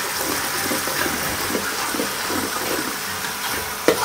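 Food sizzling as it is sautéed in a pan on the stove, a steady hiss, with one sharp knock near the end.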